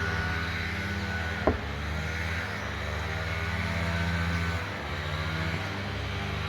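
An engine running steadily, its low hum shifting slightly in pitch, with one sharp click about a second and a half in.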